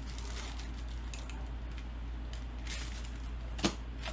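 Plastic packaging bag rustling and crinkling in the hands in short, faint bursts, with one sharp tap about three and a half seconds in, over a steady low hum.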